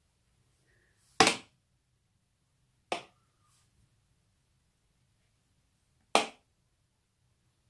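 Three short, sharp knocks of hard objects, a couple of seconds apart, the middle one quieter than the other two.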